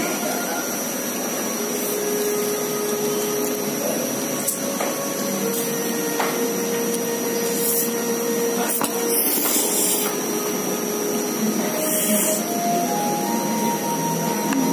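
Steady rushing background noise, with two short hissing slurps of noodles being sucked in, one about nine seconds in and another about twelve seconds in.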